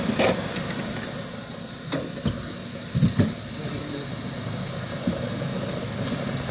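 A coach bus idling with a steady low hum, while suitcases and sports bags are set down and loaded into its open luggage hold, giving a few short knocks and thumps, the loudest about three seconds in.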